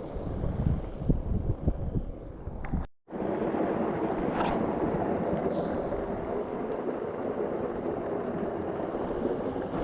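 Low, uneven thumps and rumbles of wind on the microphone. Then, after a sudden cut about three seconds in, the steady rush of a freshwater creek's running water.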